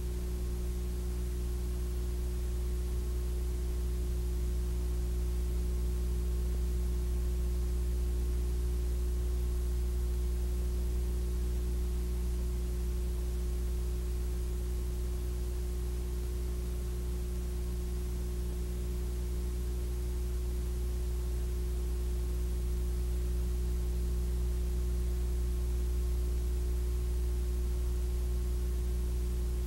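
Steady low electrical hum with faint hiss and nothing else: the empty sound track of a silent Super 8 film copied to VHS.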